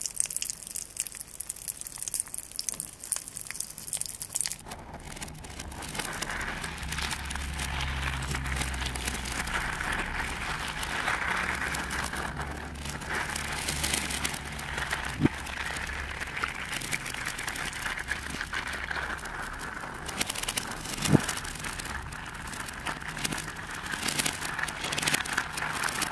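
Slime with crunchy beads crackling in a plastic cup for the first few seconds. Then hands squeeze and press slime packed with coarse crystals, making a steady crunching, squishing crackle, broken twice by a sharp pop.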